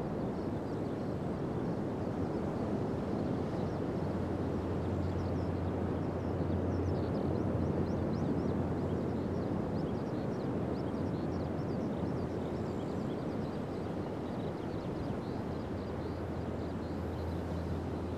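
Pacific surf breaking along a wide sand beach: a steady wash of waves with a low rumble under it, swelling slightly about eight seconds in and easing off after.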